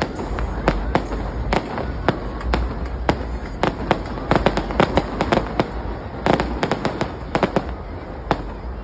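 Fireworks display: many sharp bangs and crackles in quick, irregular succession, bunching into denser volleys about halfway through and again past two-thirds.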